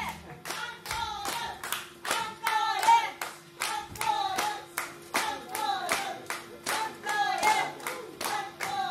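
Small audience clapping at the end of a live band's set, with voices calling out over the applause and a faint steady tone underneath.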